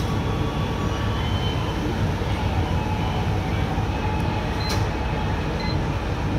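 Steady low rumble of printing-press machinery, with one short click about three-quarters of the way through.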